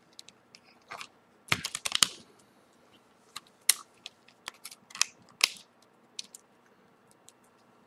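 Small plastic clicks and snaps, a cluster about a second and a half in and several more singly later: a Samsung Galaxy S4's battery and snap-on plastic back cover being pressed into place on the phone.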